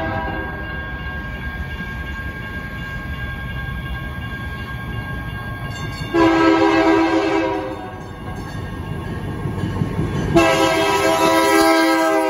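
Caltrain diesel locomotive approaching, its rumble building, and sounding its horn in two loud long blasts, the second longer. It passes close by at the end.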